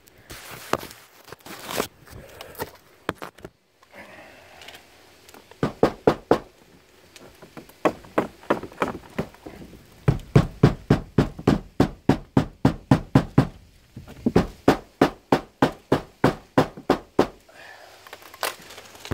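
Hammer beating the cut end of a stone-coated steel roof panel flat to crease it: runs of quick blows, about three or four a second, with short pauses between runs.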